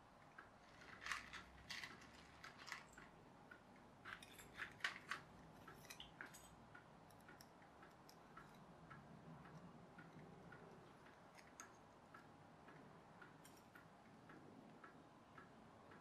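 Near silence broken by small clicks and taps from hands handling small metal parts, wire and beads, in two clusters about a second in and again around four to six seconds in. Faint, regular ticking goes on underneath.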